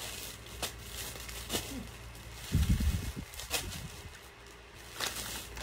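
Crinkling plastic bag being handled, with scattered short crackles and clicks as a piece of shredded squid is taken out. A louder low bump comes about halfway through.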